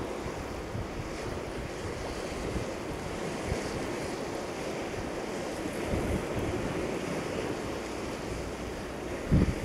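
Wind buffeting the microphone over the steady wash of sea surf on the rocks, with stronger gusts about six seconds in and again just before the end.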